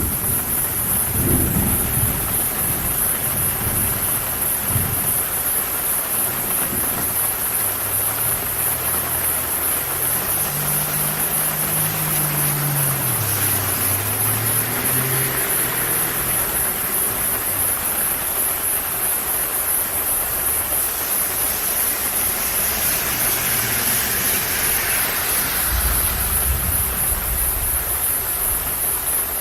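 Steady rain, with a low thunder rumble dying away in the first few seconds. Around ten seconds in, a passing car's engine hum rises and falls in pitch. A hiss swells and fades twice later on.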